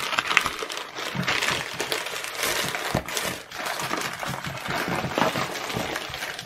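Plastic poly mailer bag crinkling and tearing as hands rip it open and drag a cardboard box out of it: a continuous run of rustles and small crackles.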